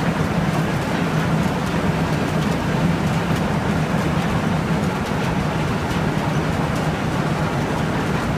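148-year-old flour-mill machinery running: belt-driven roller mills, pulleys and shafting give a steady rumble with a strong low hum and faint irregular clicking.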